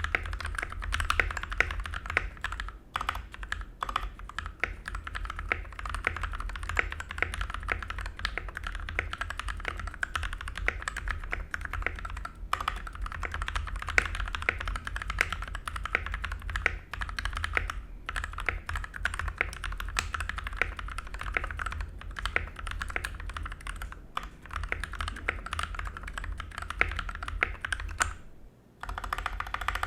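Continuous fast typing on an Ajazz K870T mechanical keyboard with Huano red linear switches, a steel plate and stock ABS keycaps: dense, overlapping keystroke clacks, with a short pause near the end.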